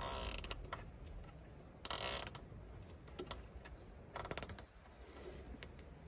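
A nylon cable tie being pulled tight by hand, its teeth ratcheting through the lock in short bursts of rapid clicks: at the start, about two seconds in, and again about four seconds in.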